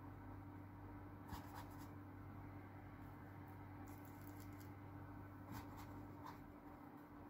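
Faint scratchy dabs of a paintbrush laying oil paint onto canvas, in three short clusters, over a steady low hum.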